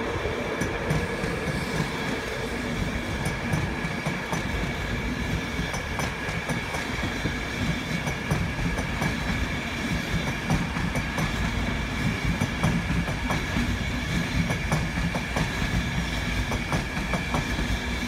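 InterCity 225 train's Mark 4 coaches rolling past, their wheels making a steady clickety-clack over the rail joints above a low rumble, with a thin steady high whine throughout. The driving van trailer passes near the end.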